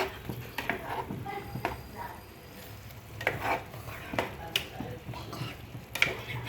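A spoon stirring egg curry in a pan, scraping and clinking against the pan at irregular intervals.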